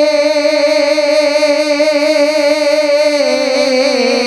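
A male naat reciter holding one long sung note into a microphone, its pitch stepping down about three seconds in.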